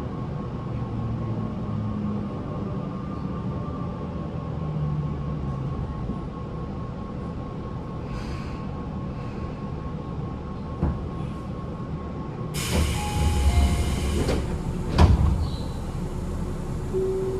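Tobu 9050 series electric train heard from inside its motor car, running with a steady rumble and a faint steady whine, the air conditioning on. About two-thirds of the way in comes a brief loud hiss lasting about two seconds, then a single sharp knock.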